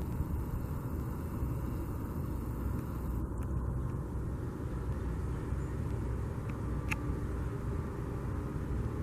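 Steady low rumble of motor vehicle noise, with a couple of faint ticks.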